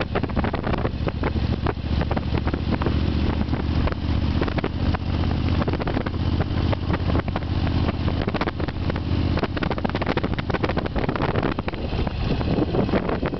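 Vehicle engine running steadily at cruising speed, with road noise and wind buffeting the microphone.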